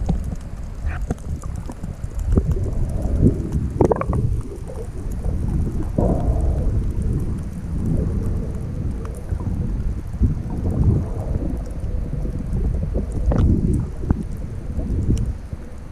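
Muffled low rumble and sloshing of water moving around an underwater camera held just below the surface, with a few brief bubbly splashes now and then.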